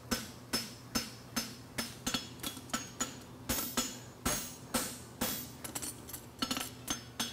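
Farrier's hammer striking a hot steel draft horseshoe on an anvil in steady blows, about two to three a second, each with a brief metallic ring, as the toe of the shoe is forged up.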